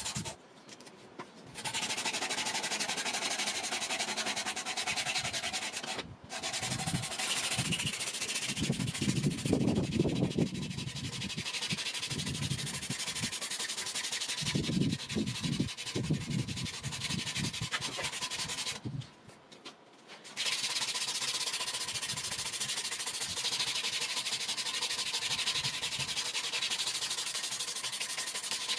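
A strip of abrasive cloth is pulled around a wooden knife handle, sanding it with a steady rasping hiss. The sanding stops briefly just after the start, again for a moment about six seconds in, and for a second or so about two-thirds through. It is louder and heavier for a few seconds at a time in the first half.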